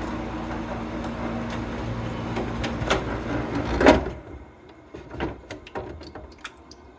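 GE 22-pint portable dehumidifier running with a steady vibrating hum, which the owner puts down to the plastic body panels resonating with an unbalanced fan. A little before four seconds in, after a sharp click, the loud hum stops abruptly, leaving a much quieter run with a few small knocks.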